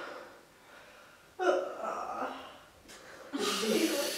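A person's wordless vocal sounds: a breathy gasp at the start, a sudden voiced sound about a second and a half in, then louder breathy vocalising from about three and a half seconds in.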